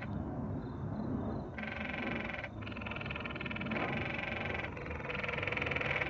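Canyon tree frogs (Dryophytes arenicolor) calling: a run of rapid, pulsed trills about a second long each, repeated about four times with short gaps.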